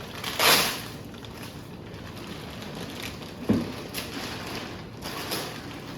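Packaging and parts being handled: a brief rustle of wrapping about half a second in, a dull knock a few seconds later, and small clicks.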